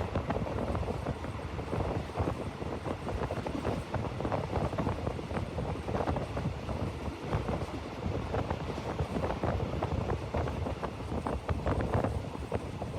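Steady rumble of a moving train with irregular rattling and knocking, and wind buffeting the microphone.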